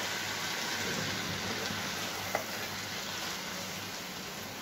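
Chicken and chopped mustard greens sizzling steadily in a frying pan as they are stirred with a spatula, with one faint click about halfway through.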